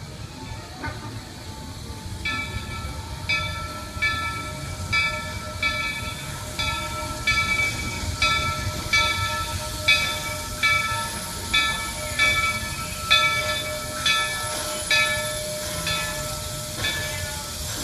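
Steam locomotive Roger E. Broggie (Walt Disney World Railroad No. 3, a 4-4-0) rolling in with its bell ringing steadily, about one stroke a second, starting a couple of seconds in and growing louder as the engine approaches. Under the bell is a low rumble and hiss from the moving train.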